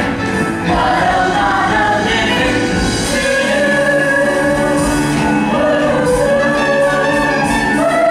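A musical-theatre number sung by a stage cast with instrumental accompaniment, with several long held notes.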